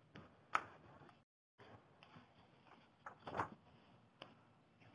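Quiet line noise with a few faint, sharp clicks and a short soft rustle. The audio drops out completely for a moment about a second in.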